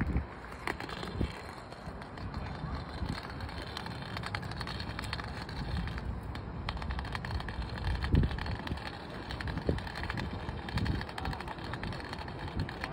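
A white cane's tip clicking and scraping over brick pavers with each sweep, mixed with footsteps, and a few low rumbles of wind on the microphone, the strongest about eight seconds in.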